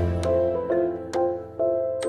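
Gentle instrumental background music: a melody of clear pitched notes, a new one about every half second, over a held bass.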